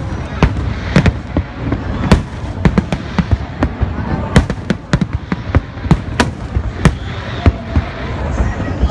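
Aerial fireworks bursting in a rapid, irregular barrage of sharp bangs, several a second, over a continuous low rumble.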